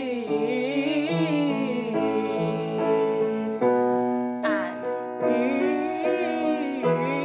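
A woman singing slow, drawn-out phrases over sustained piano chords that change every second or so.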